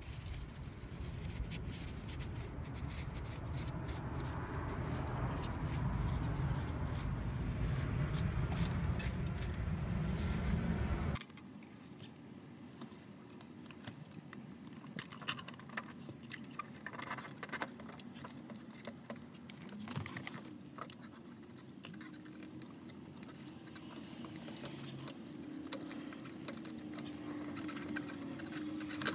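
Light metallic clinks and rubbing from a fuel pump assembly being handled. It is wiped with a shop towel with wind rumbling on the microphone, then, after a sudden cut about a third of the way in, worked into the fuel tank opening with scattered sharp clinks.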